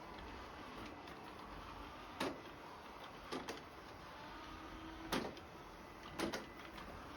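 Robot vacuum cleaner running with a faint steady hum, with a few short knocks about a second apart as it bumps into things.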